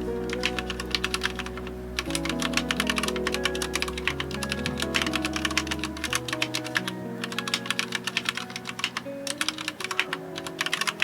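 Fast typing on a Ducky One 3 TKL mechanical keyboard with Durock White Lotus tactile switches and Akkogear keycaps: a dense, continuous run of key clacks that pauses briefly near the end. Soft lo-fi music plays underneath.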